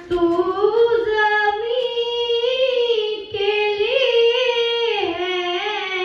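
A single high voice singing unaccompanied: a slow melody with bending, ornamented notes, settling into a long held note near the end.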